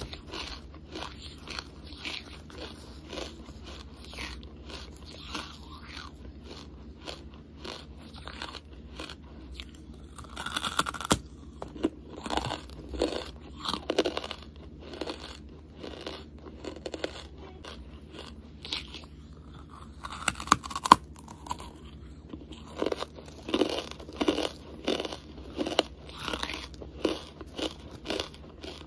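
Close-miked chewing of hard charcoal: a long run of short, sharp crunches and grinding between the teeth. There are louder bites about 11 and 21 seconds in, and a busy stretch of crunching near the end.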